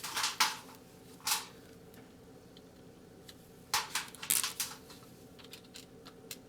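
Short sharp metallic clicks and knocks from hand tools working a stuck shock bolt: a couple about half a second in, one just after a second, a cluster around four seconds, then a few light ticks.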